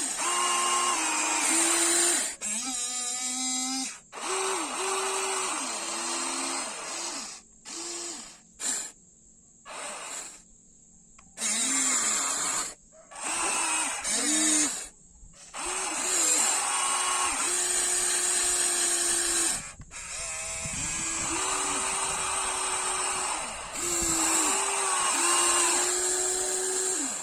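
Small electric motors of a model excavator whining in repeated short runs, each rising in pitch as it spins up and stopping a second or a few seconds later, with brief pauses in between.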